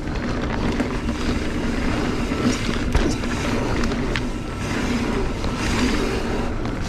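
Mountain bike rolling along a dirt trail: steady tyre and wind noise with a low hum, and a few short rattles and knocks from the bike.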